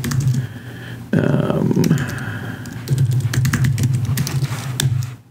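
Typing on a computer keyboard, a run of quick key clicks as a terminal command is entered, over a low steady hum.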